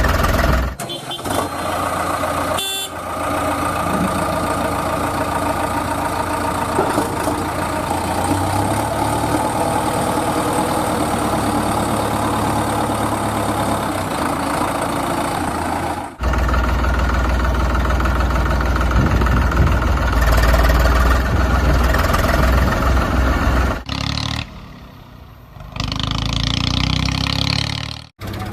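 Engine of a vehicle running, heard in several clips cut together with sudden jumps in sound.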